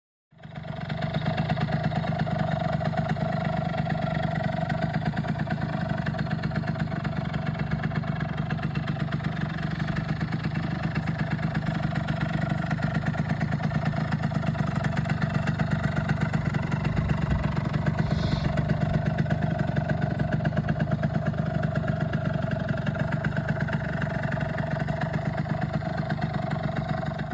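Two-stroke engine of a 1989 Yamaha Zuma scooter running at a steady speed, its fast even exhaust pulses holding pitch.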